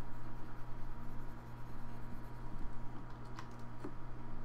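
Steady low background hum with two faint clicks near the end, from computer keys being pressed.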